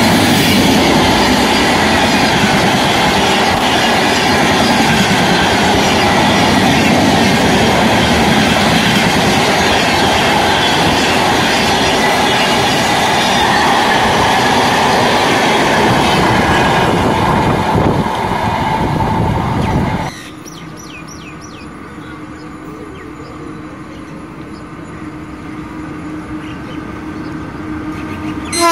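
Express train's passenger coaches passing close at speed: a loud, steady rumble and clatter of wheels on the rails. About 20 seconds in, the sound drops suddenly to the much quieter, slowly growing rumble of an electric-hauled train approaching from a distance.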